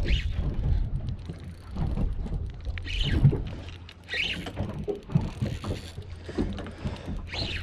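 Wind buffeting the microphone and water moving around a small boat, in an irregular low rumble, with four short higher-pitched bursts.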